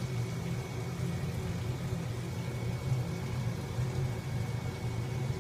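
A steady low hum with a faint, thin high-pitched tone above it, unchanging throughout.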